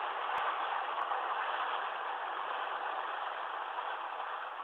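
Freight cars rolling past on the rails: a steady noise of steel wheels on track that slowly fades as the end of the train moves away.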